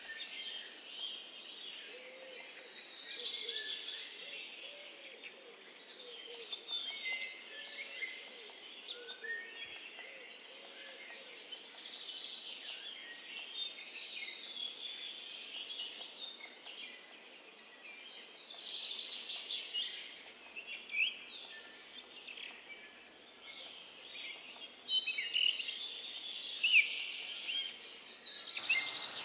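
Songbirds chirping and singing, many short calls and trills overlapping, over a faint outdoor hiss.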